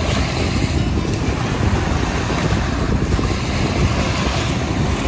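Wind buffeting the microphone: a steady, rough low rumble with no distinct events.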